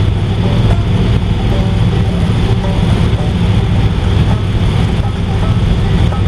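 1955 Ford station wagon's 292 Y-block V8 and tyres at a steady cruise: an even low engine drone with road noise, the exhaust running quiet now that its leak is fixed.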